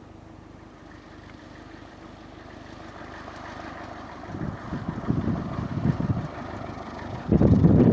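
Wind buffeting the microphone in irregular gusts from about halfway in, strongest near the end, over a low steady rumble that slowly grows louder.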